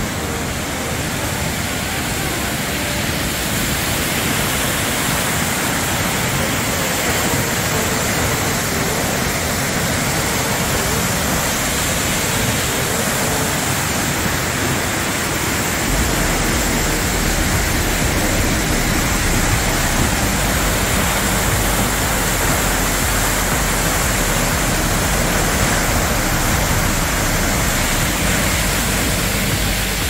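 Steady, loud roar of Tortum Waterfall, a 48 m high, 21 m wide fall plunging down a rock cliff. A deeper low rumble joins about halfway through.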